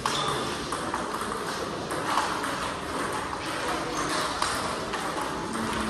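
Table tennis multiball drill: plastic balls clicking in a quick, uneven run as the coach feeds them across the table and the player hits them back off her paddle, with bounces on the tabletop.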